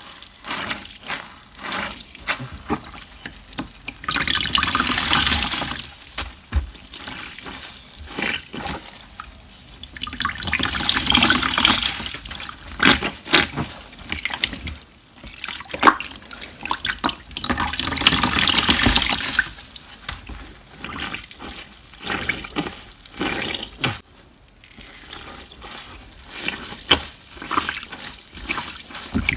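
Water-soaked sponge being squeezed: water gushes out three times for about two seconds each, with wet crackling and short splashes in between.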